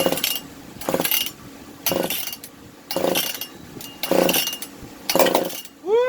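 Husqvarna K760 power cutter's two-stroke engine being pull-started: about six quick starter-rope pulls, roughly one a second, each a short whirring rattle, with the engine not catching. A cat meows near the end.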